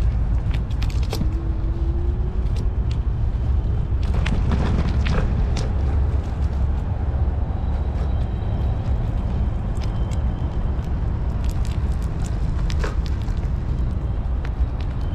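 Electric rental scooter rolling over rough, cracked asphalt: a steady low rumble with scattered clicks and rattles, loudest a little after four seconds in.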